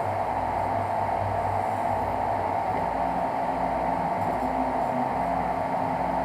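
Prusa i3 3D printer printing: its stepper motors give short low tones that change pitch every half second or so as the print head moves, over a steady fan hiss.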